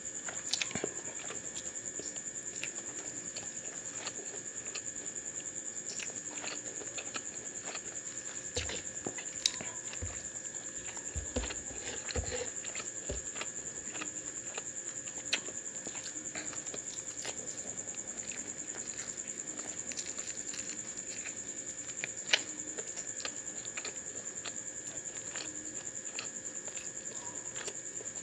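Close-up eating sounds: chewing with small wet mouth clicks, and fingers working curry and cauliflower rice on a wooden board. There are a few sharper clicks and some low thumps around the middle, over a steady high whine.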